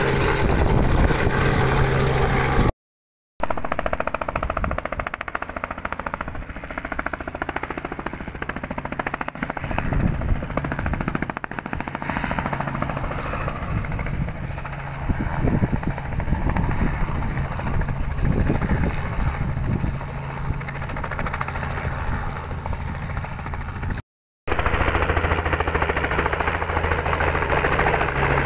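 Robinson R44 helicopter in flight: rapid chop of the main rotor blades over a steady engine drone. The sound cuts out briefly twice.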